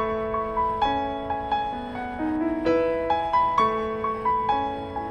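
Background music: a gentle piano tune, single high notes struck about two a second over held lower notes.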